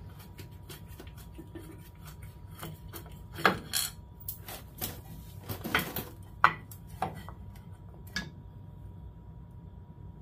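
Metal parts clinking and clanking as a roller chain and the CVT mounting plate are handled and shifted into position on a mini-chopper engine. It is an irregular run of light knocks with a few louder clanks around the middle, and it stops about eight seconds in.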